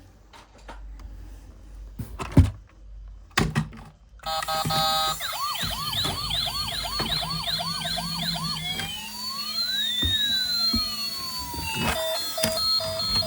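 A few sharp plastic clicks and knocks, then about four seconds in a toy emergency vehicle's electronic siren starts. It begins as a fast up-and-down yelp, turns into a slower wail that rises and falls, and near the end becomes a steady two-tone hi-lo beep.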